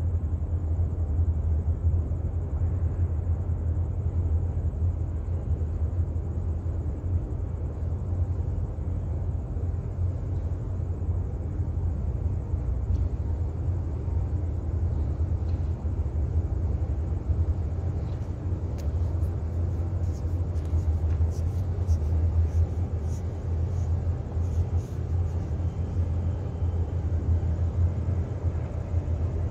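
Steady low rumble of a large container ship's engine and propulsion as the ship passes close by. Faint scattered ticks come in about two-thirds of the way through.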